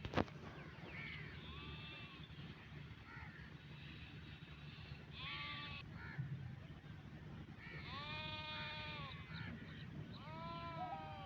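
Sheep bleating: a few wavering calls, the longest about a second, near the middle and toward the end. A sharp click comes at the very start, over a steady low hum.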